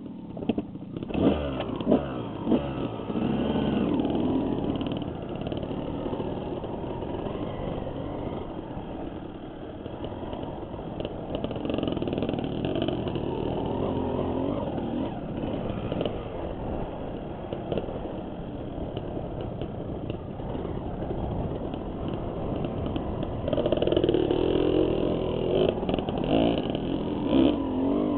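Dirt bike engine revving up and down as the bike rides a rough trail, heard from a helmet-mounted camera, with sharp knocks from bumps in the first few seconds.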